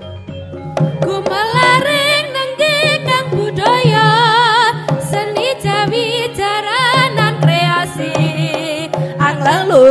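Traditional Javanese jaranan accompaniment music: a wavering, heavily ornamented melody line enters about a second in over drums and a steady low drone.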